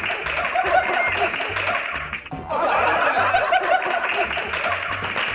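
A group of young men laughing hard over background music with a steady beat, the laughter breaking off briefly about two seconds in, then starting again.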